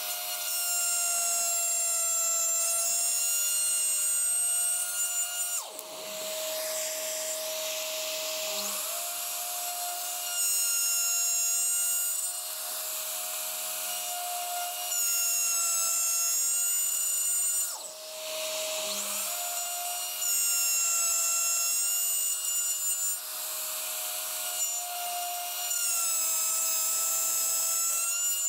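Plunge router with a 9 mm bit cutting a slot in an oak fence in shallow passes of about an eighth of an inch. The motor whines steadily and gets louder in stretches of a few seconds as the bit bites. Its pitch sags briefly twice.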